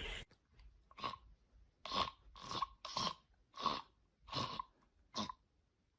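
A cat crunching food: about seven short, dry crunches at uneven spacing, half a second to a second apart.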